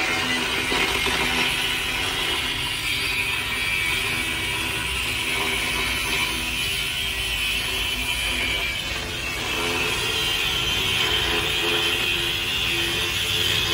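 Angle grinder with a thin cut-off disc cutting through a rusty steel truck exhaust pipe: a steady high-pitched whine of the disc in the metal, part of cutting off the old exhaust to replace it.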